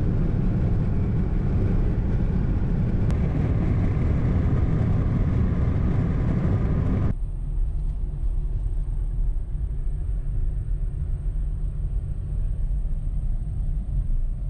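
Car on the move: steady road and engine rumble. About seven seconds in it changes abruptly to a quieter rumble with a faint steady high whine.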